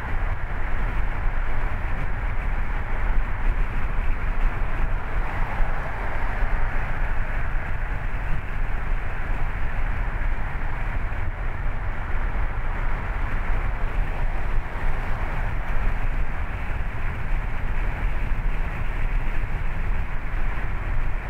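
Steady road noise of a car driving: a low rumble with tyre and wind hiss, even throughout.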